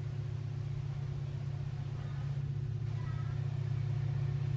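Diesel locomotive of a Babaranjang coal train running with a steady low drone, slowly growing louder as the train comes closer.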